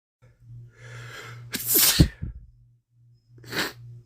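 A man with a cold sneezing: a breathy build-up, then one loud sneeze about a second and a half in. Near the end comes a short sniff, all over a faint steady low hum.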